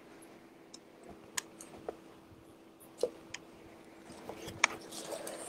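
Hard plastic action-figure parts clicking and tapping as they are handled, about half a dozen small sharp ticks spread apart. Light rustling of plastic packaging comes in near the end.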